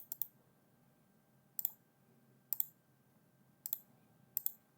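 Computer mouse clicking: five quick double clicks about a second apart, over a faint low hum.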